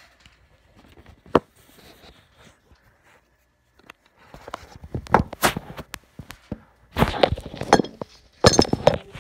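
Handling noise of a phone being moved and propped up: a single sharp click about a second and a half in, then from about four seconds on a run of knocks, clinks and rubbing against the microphone, loudest near the end.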